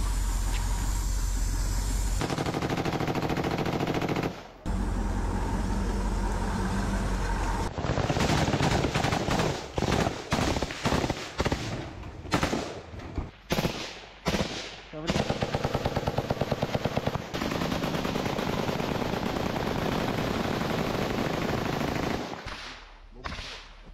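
Close-range automatic rifle fire from several shooters. It runs almost without pause, with a short break about four seconds in, comes in short choppy bursts between about eight and fifteen seconds, then turns into long sustained fire that thins out near the end.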